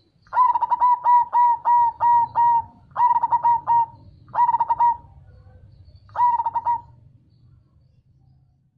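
Zebra dove (perkutut) cooing: a long run of about eight quick staccato notes, then three shorter phrases of three or four notes with pauses between.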